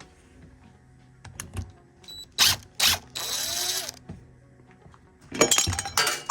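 Metal clicks and clanks of an RV entry-door lock being worked loose and pulled from the door, with two sharp knocks about two and a half seconds in, a short hiss just after, and a loud clatter near the end.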